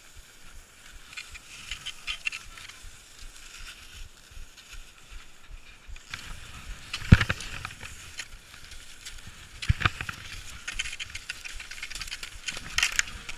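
Cross-country skis sliding and scraping on snow, with ski poles planting and clicking over and over; a sharp knock stands out about seven seconds in and another near ten seconds.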